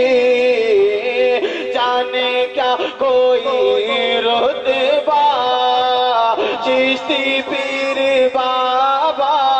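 A man singing a naat into a microphone. He holds long, drawn-out notes that waver and glide from pitch to pitch, with no clear words.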